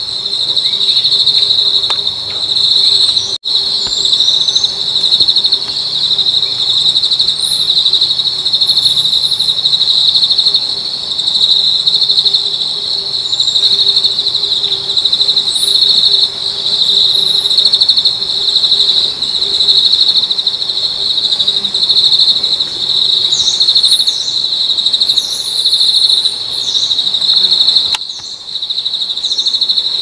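A loud, steady, high-pitched insect drone with a fast pulse, carrying on without a break. Over it, a thin, very high call shoots up and slides down about every eight seconds.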